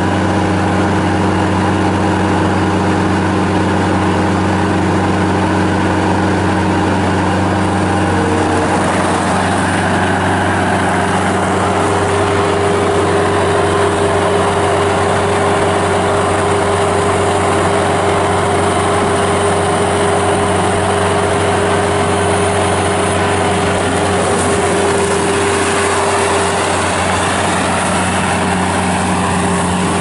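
Bobcat S205 skid steer's Kubota 66 hp turbo diesel engine running steadily as the machine drives, its engine note changing pitch about eight to nine seconds in.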